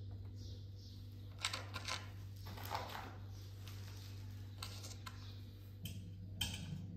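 Scattered light metallic clicks and clinks as the steel linkage arm and bolts of an egg-turner rack are handled and adjusted, over a steady low hum.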